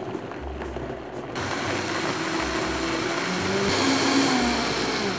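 Countertop blender motor running, pureeing boiled tomatoes, onion, garlic and jalapeño with water into a salsa. It speeds up and gets louder about a second and a half in, is loudest around four seconds, and starts winding down near the end.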